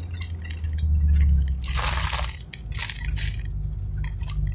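Vehicle running as it pulls in and slows, its low rumble dropping away after about a second and a half, with a short crunching noise about two seconds in and a few softer ones after.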